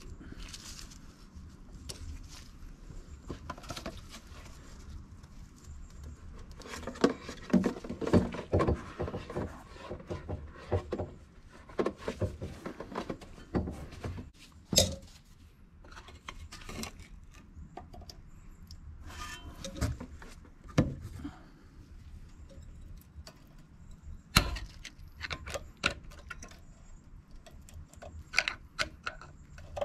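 Hand tools clinking, knocking and scraping on a brake caliper as screwdrivers are levered between pad and rotor to push the caliper piston back into its bore. The knocks come irregularly, with a quick flurry about a third of the way in and two sharp single knocks later on.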